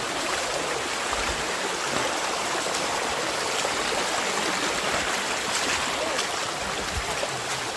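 Steady rush of a rocky hill stream's flowing water.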